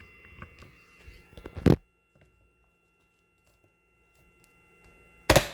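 Plastic string-trimmer handle parts knocking as the handle assembly is pushed hard onto the shaft, with two loud clunks, one about a second and a half in and one near the end.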